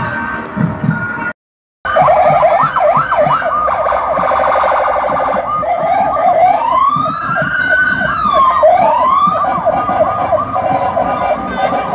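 Several siren wails overlapping, a dense tangle of rising and falling tones, starting loud after a brief cut-out about a second and a half in. Before the cut-out, the tail of background music.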